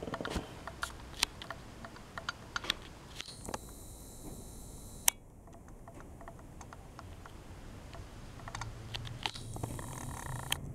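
Handling noise: scattered light clicks and two short spells of rustling as fingers move over the paper of an old magazine and the handheld camera, with one sharper click about five seconds in.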